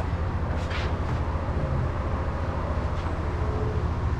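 Steady low background hum, with a few faint light clicks about a second in and again about three seconds in.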